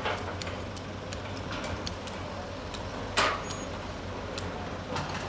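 Hydraulic excavator's diesel engine running steadily while it digs rock and sand, with scattered clinks of stones. There is one loud sharp clatter about three seconds in.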